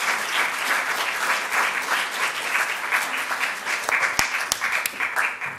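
Audience applauding: dense, steady clapping, with a few louder single claps standing out near the end before it dies away at the very end.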